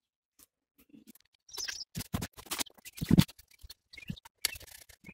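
A Land Rover Defender steel wheel being fitted to the hub: scattered scrapes, clicks and knocks of the rim against the studs and of wheel nuts being put on by hand, with the loudest knock about three seconds in.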